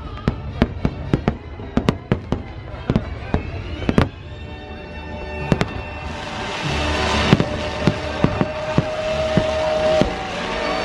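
Aerial fireworks going off in a quick run of sharp bangs. From about six seconds in, a dense hissing crackle builds as many shells rise and burst together, with the show's music playing underneath.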